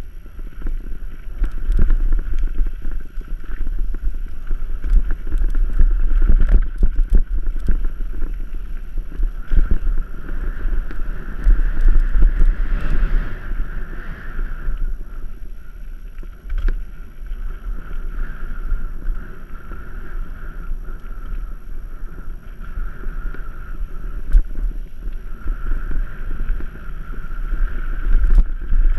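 Mountain bike riding fast down a dirt singletrack: wind buffeting the microphone over a continuous rumble and rattle of tyres and bike on the trail, with frequent knocks from bumps. A high buzz comes and goes.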